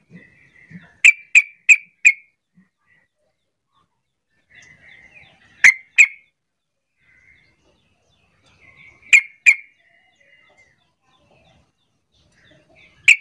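Yellow-vented bulbul (trucukan) giving short, sharp, loud call notes: a quick run of four about a second in, then pairs in the middle and later on, with faint softer chatter between.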